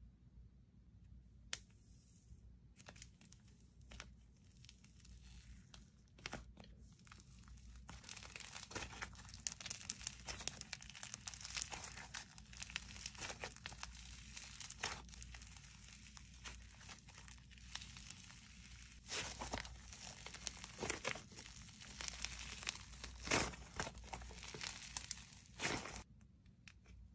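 Slime being squeezed, stretched and pulled apart by hand: sticky crackling and popping. It starts as a few scattered pops, becomes a dense run of crackles from about eight seconds in, and has several louder snaps near the end.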